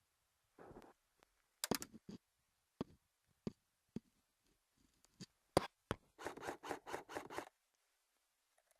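Handling noise close to a small action camera's microphone: scattered clicks and short scrapes, then a quick run of about eight rasping strokes in the second half.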